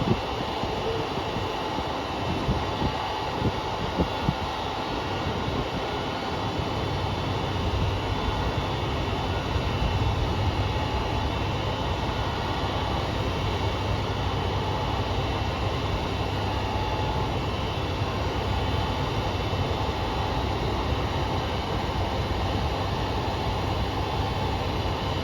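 KiHa 200 diesel railcar idling at a platform: a steady low engine rumble with steady whining tones above it, and an abnormal noise from car KiHa 200-1551 that marks a fault. A few short knocks come a few seconds in.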